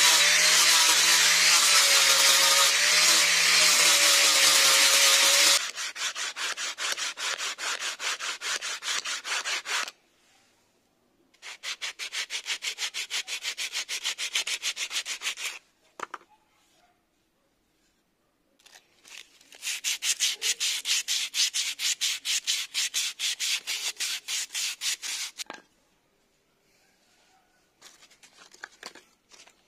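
An angle grinder fitted with a sanding disc runs steadily against a wooden handle, stopping about five seconds in. Sandpaper is then rubbed back and forth along the wooden handle in quick, even strokes, in three bouts with short pauses between.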